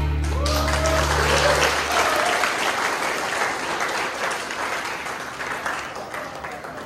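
Audience clapping at the end of a song, whose last low note dies away in the first couple of seconds, with a few voices calling out early on; the clapping slowly thins out.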